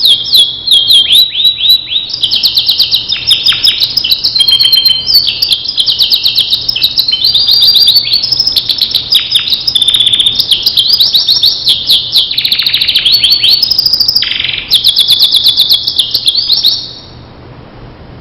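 Domestic canary singing a long, continuous, high-pitched song of rapid trills and rolls, changing from one trill to the next every second or so. The song stops near the end.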